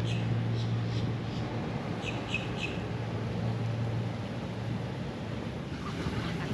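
A steady low engine hum that fades out about four and a half seconds in. Over it, a bird gives short high chirps in two quick sets of about three notes, at the start and about two seconds in.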